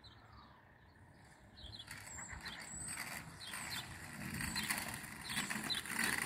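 Two-wheeled kick scooter rolling along a paved footpath: a rough rolling noise with many small clicks and rattles that starts about a second and a half in and grows louder as it comes closer. Faint bird chirps above it.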